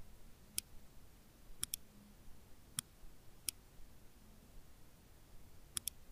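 Faint computer mouse clicks, about seven in all: single clicks and a couple of quick double clicks.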